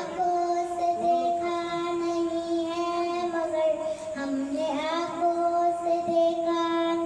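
Children singing a naat, an Islamic devotional song, in unison, holding long drawn-out notes with no clear words, the melody dipping briefly about four seconds in.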